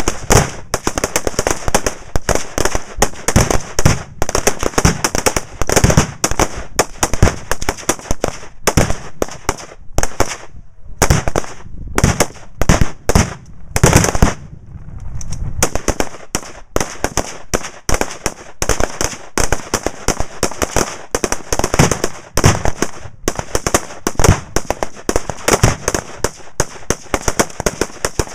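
Rapid, near-continuous rifle fire from a line of shooters, several shots a second, including a .308 Springfield M1A SOCOM II semi-automatic rifle at close range, mixed with deeper booms from exploding targets downrange. The firing thins briefly a little past the middle, around a louder boom.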